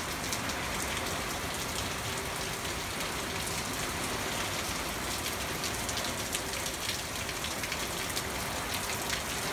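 Hurricane rain and wind, a steady rushing noise with scattered sharp ticks, which sounds like a tornado.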